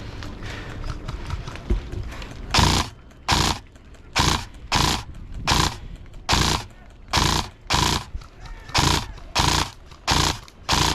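A person panting hard, close to the microphone: loud, regular breaths about three every two seconds, starting a couple of seconds in after a steady rustling hiss.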